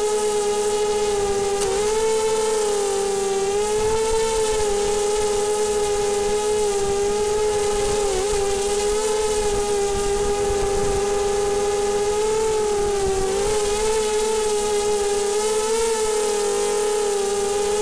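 Small FPV quadcopter's electric motors and propellers whining steadily, the pitch wavering and dipping briefly a few times with throttle changes.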